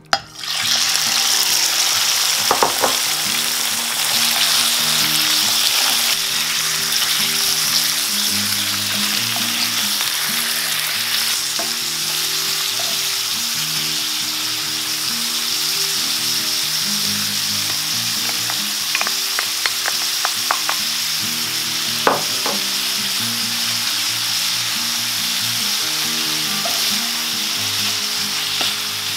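Chicken liver pieces sizzling in hot olive oil in a black steel frying pan, the sizzle starting suddenly at the outset and staying steady. A wooden spatula stirs and scrapes them, with a few sharp taps against the pan about two seconds in and again near the end.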